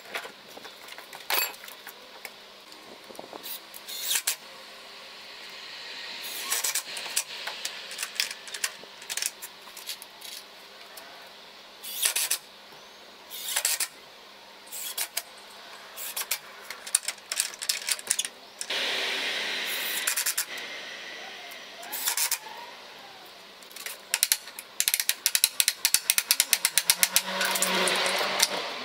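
Wooden double gate being closed and fastened: scattered knocks of wood and clacks of metal bolts and latch, with a fast metallic rattle of rapid clicks near the end.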